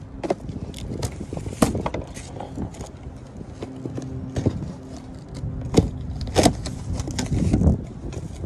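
A cardboard shipping box being handled and opened by hand: scattered knocks, scrapes and rustles of cardboard flaps, the loudest a sharp knock a little past the middle.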